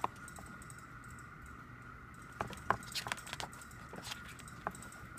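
Glossy pages of a CD album's photobook being handled and turned, giving a few light clicks and paper rustles about halfway through and once near the end. A faint steady high hum runs underneath.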